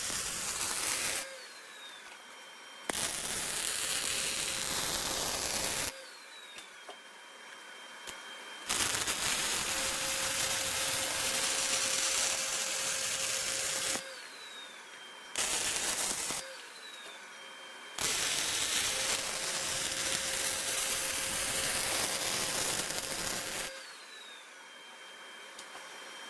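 Arc welding on a steel snowplow A-frame after tacking: five runs of crackling, hissing weld noise, each one to five seconds long, with short pauses between beads.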